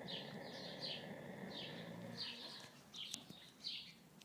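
A pet snoring, a rough breathing sound that breaks off a little past halfway and starts again at the end. Over it a small bird chirps quickly, about three short chirps a second.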